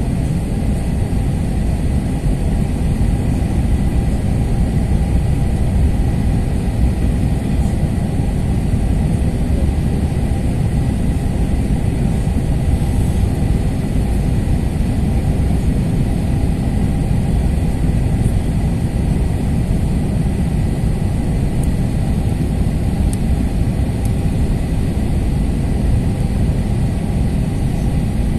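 Steady cabin drone inside an Airbus A321-231 in flight: the low roar of its IAE V2500 turbofan engines and the airflow, with no change in level.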